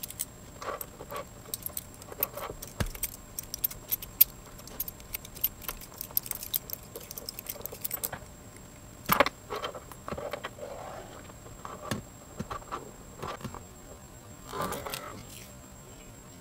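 Bicycle roller chain being handled and fed onto a rear derailleur, its steel links clinking and rattling in a run of small metallic clicks. There are louder clatters about nine seconds in and again near the end.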